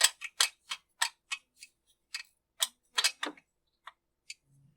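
A series of sharp, irregular metallic clicks and ticks from hand tools working the muffler screws of a chainsaw. The clicks come quickly at first and thin out toward the end.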